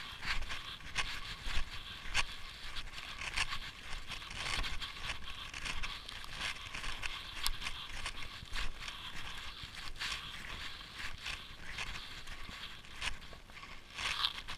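Snowshoe steps crunching and scraping on packed snow at a steady walking pace, roughly a step every two-thirds of a second.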